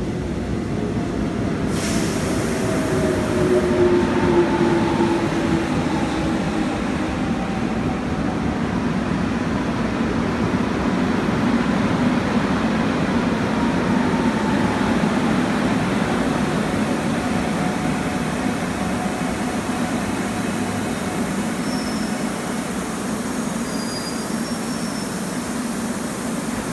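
Korail electric multiple-unit commuter train pulling into the station and braking to a stop, with steady wheel-on-rail noise. Its motor whine falls in pitch as it slows.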